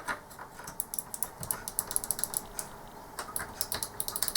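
Micro switches under a Logic3 mouse's buttons clicked over and over in quick, irregular runs, freshly sprayed with contact cleaner to work it into the contacts.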